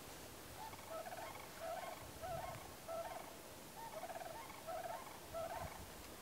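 Animal calls: a series of short, rolling, rapidly pulsed calls, about one every half-second to second, over a faint steady background hiss.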